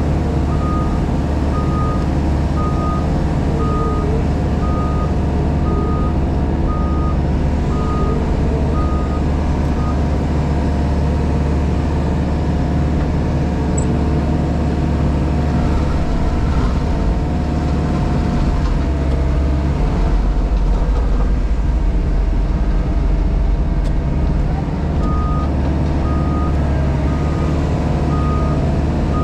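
The diesel engine of a JCB Pothole Pro running steadily, heard from inside the cab, with the machine's warning alarm beeping about twice a second for the first third and again near the end. The low engine note grows heavier for a few seconds around the middle.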